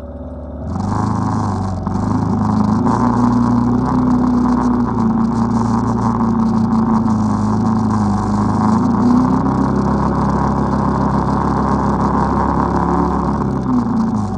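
ATV engine running under throttle while riding through snow. It picks up about a second in, holds fairly steady revs with small rises and dips, and eases off near the end.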